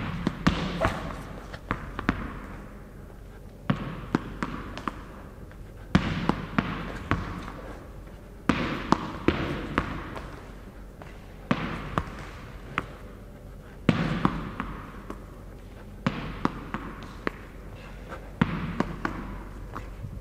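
A tennis ball being punched and caught: sharp taps in quick groups of two to four, a fresh group every two or three seconds.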